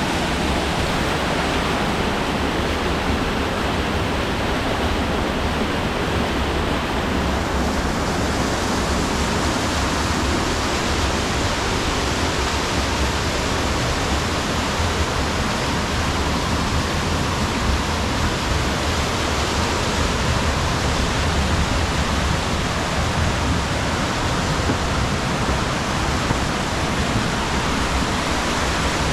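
Mountain stream rushing and cascading down a gorge, a steady, even roar of water with no breaks.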